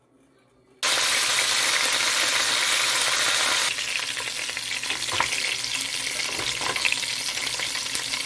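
Boiled chicken pieces frying in hot avocado oil in a steel pan: a loud, dense sizzle that starts abruptly about a second in. Partway through it drops a little, and a wooden spatula stirring the pieces adds scattered clicks and scrapes.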